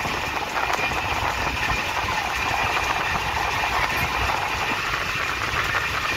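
Passenger train running along the track, heard from on board: a steady rumble with a rushing noise over it.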